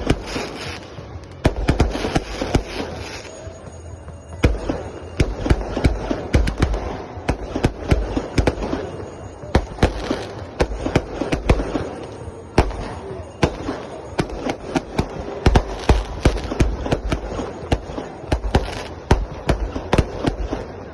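Fireworks going off: many sharp bangs and pops in quick, irregular succession, with low booms under them.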